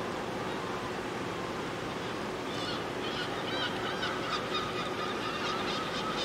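Steady outdoor background noise, with a bird calling in short, repeated high calls from about two and a half seconds in.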